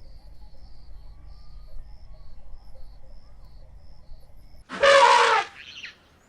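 Faint, evenly spaced insect chirping over a low background, then about five seconds in a single short, loud trumpet call from an Asian elephant.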